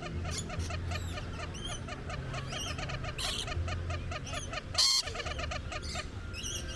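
Rainbow lorikeets chattering: a fast, even run of short chirps, about four or five a second, with higher calls over them and one sharp, loud screech a little under five seconds in.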